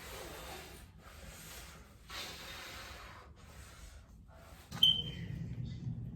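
A person breathing heavily in several long, breathy exhales. About three-quarters of the way through there is a single knock, followed by a steady low hum.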